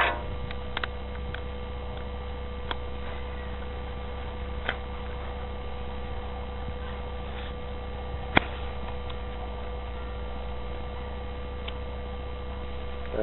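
A steady electrical hum with a few scattered faint clicks and taps, one sharper click about eight seconds in.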